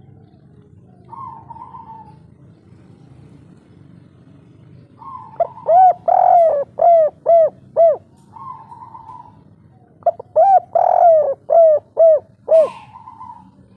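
Spotted dove of the 'kuk 3' song type cooing: two loud phrases of quick, evenly repeated ringing coos, the first about five seconds in and the second about ten seconds in.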